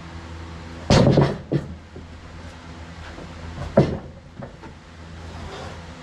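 Heavy sawn timbers knocking and clunking as they are handled onto the sawmill, a loud cluster of knocks about a second in and another sharp knock near four seconds, over a steady low engine hum.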